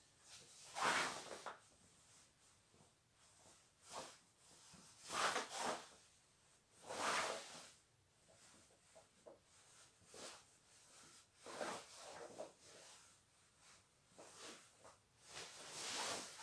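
Karate gi fabric swishing in short bursts as arm blocks are thrown, about ten separate swishes with near silence between them.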